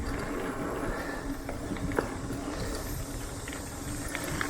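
Mountain bike rolling fast down a dirt trail: steady tyre and trail rumble with a constant hum, and scattered clicks and rattles from the bike over the bumps.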